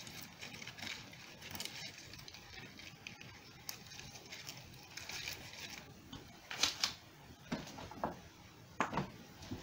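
Faint rustling and light clicking of dry twigs and ribbon being handled as a bundle of sticks is tied up, with a few short, sharper knocks in the second half.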